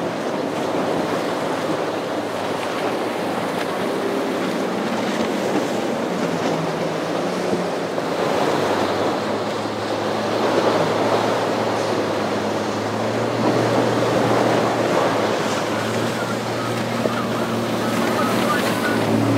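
Rough surf and churning water with wind on the microphone, and a boat's outboard engine humming steadily underneath, growing more noticeable from the middle on.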